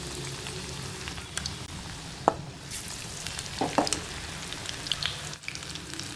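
Batter-coated spinach leaves (palak pakoras) deep-frying in hot oil in a steel kadai: a steady sizzle with scattered crackles and pops, one sharp pop a little over two seconds in.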